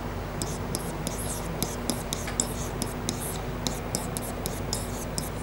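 Pen writing on an interactive whiteboard: a quick, irregular run of short scratchy strokes as words are written out.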